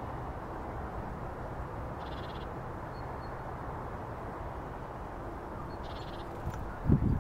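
Steady outdoor background rumble. Two faint, brief high-pitched chirps come about two seconds in and again near the end, and a couple of loud low buffeting thumps start just before the end.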